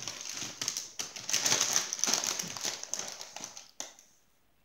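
Foil-lined Doritos chip bags crinkling and rustling as they are grabbed and handled, stopping a little before the end.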